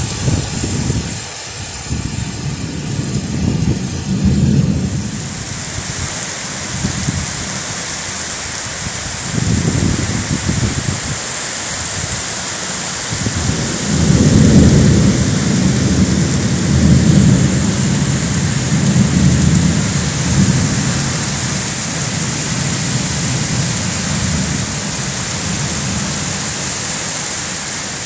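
Heavy downpour hissing steadily in strong gusting wind. Low rumbles swell and fade several times, the longest and loudest through the middle.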